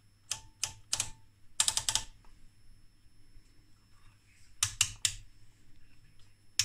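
Detented rotary range switches on a 1965 Marconi TF2203 oscilloscope's front panel clicking as they are turned step by step: three single clicks, then a quick run of about four, and later a run of three.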